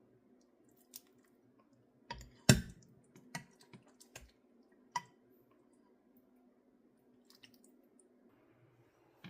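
A handful of sharp clicks and knocks, like utensils or containers handled in a kitchen, the loudest about two and a half seconds in, over a faint steady low hum.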